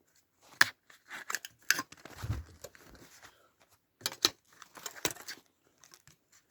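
Plastic casing of a laptop AC adapter being cut and prised apart with cutters: a run of sharp, irregular clicks and cracks, with a dull thump about two seconds in.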